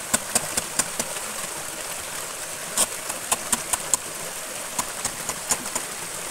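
A large tapping knife shaving a thin slice off the cut end of a tapped sugar palm (aren) flower stalk. The sound is a run of crisp, irregular ticks and crackles as the blade works through the fibres, with a lull of about a second and a half before the ticking resumes.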